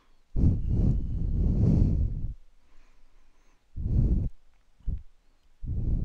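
Wind buffeting the camcorder's microphone in gusts: low, muffled bursts, a long one of about two seconds near the start and shorter ones after.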